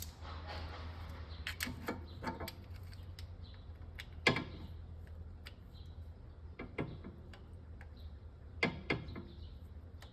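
Ratchet driving a T30 Torx bit on a crankshaft position sensor bolt, giving scattered single clicks and knocks rather than a steady run of ratcheting, over a low hum.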